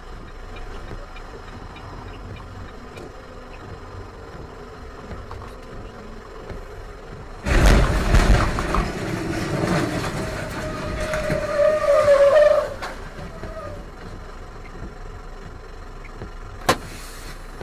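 Steady truck-cab road noise, then, about seven and a half seconds in, a sudden loud crash with crunching and scraping as a tractor-trailer runs off the road alongside. It lasts about five seconds, with a squeal rising slightly near its end. One sharp click comes near the end.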